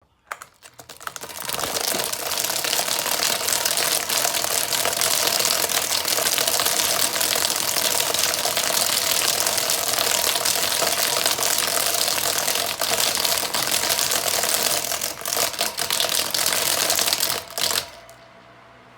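Fan making a rapid chipping, clicking rattle that builds up over the first two seconds, runs loud and steady, and stops abruptly near the end, leaving a faint hum.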